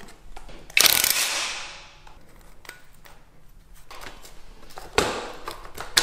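Hand tools and metal parts clattering while a motorcycle engine cover is unbolted: a loud rattle about a second in that dies away, then scattered clicks with a sharp click near the end.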